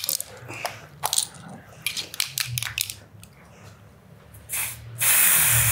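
Aerosol can of coloured hair spray: a few scattered clicks and knocks as the can is handled, a short burst of spray about four and a half seconds in, then a steady spray hiss that starts near the end.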